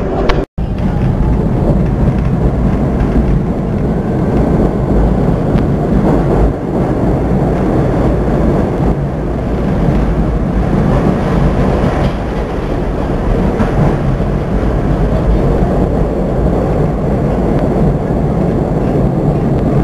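New York City subway train running along the track: a steady, loud rumble of wheels and rails, with a sharp click and a split-second dropout about half a second in.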